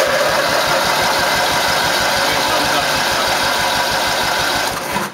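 Twin-cylinder riding-mower engine cranking over on its electric starter for a compression test, with a gauge screwed into one spark-plug hole and the other plug lead off so it cannot fire. It gives an even pulsing of about eight beats a second and stops suddenly near the end. Both cylinders read fairly low compression, which the owner puts down to worn rings or cylinder walls.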